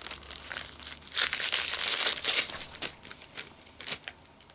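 Gift wrapping paper crinkling and tearing as a wrapped present is opened, with a busy run of rustles and rips that is loudest for about a second and a half after the first second, then dies down.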